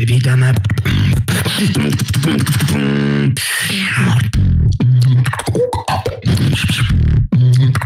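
Solo beatboxing into a handheld microphone: fast kick-and-snare clicks over a low bass line, with a held pitched note about three seconds in.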